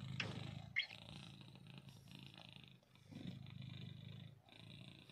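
Domestic cat purring, a low pulsing hum that swells and fades in long cycles of about one and a half seconds with each breath. A brief sharp sound cuts in about a second in.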